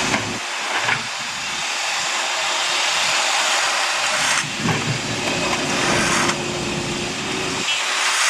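Loud, steady hissing noise from road-works machinery, shifting abruptly in tone and loudness a few times.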